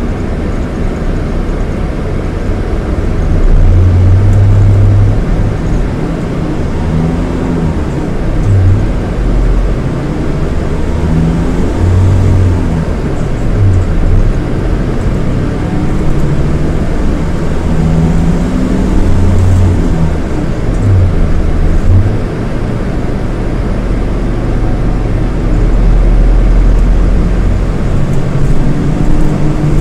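Scania K230IB coach's Scania DC9 230 hp diesel engine pulling under way, its revs climbing and dropping away several times as the semi-automatic gearbox changes gear.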